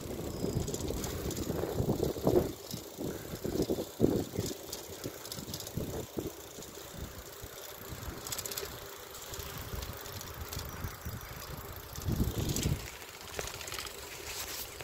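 Riding a bicycle with wind rushing over a phone's microphone, heaviest in the first few seconds and easing after, under the bike's rattling, with a few sharp knocks about two and four seconds in and again near the end.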